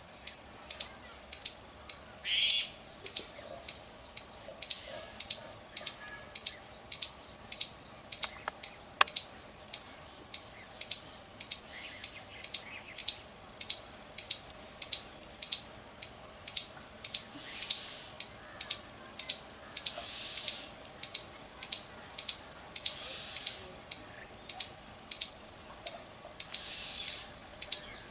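Indian palm squirrel giving its loud, high chirping barking call, sharp chirps repeated steadily about twice a second.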